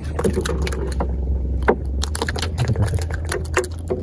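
A freshly caught fish being handled and unhooked in the hand over a wooden boat deck: scattered light knocks, taps and rustles over a steady low rumble.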